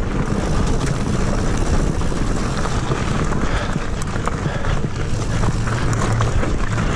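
Mountain bike ridden at speed along a dirt singletrack: tyres rolling over dirt and roots and the bike rattling and knocking over bumps, under a steady rushing noise of wind on the bike-mounted camera.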